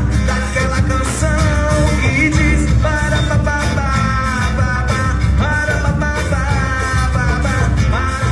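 Live samba band playing: cavaquinho, acoustic guitar, electric bass and hand drum, with a lead voice singing over them.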